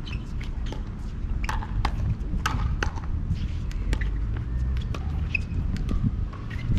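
Pickleball play: sharp pops of paddles striking the plastic ball and the ball bouncing on the hard court, coming irregularly, about a dozen in all, over a steady low rumble.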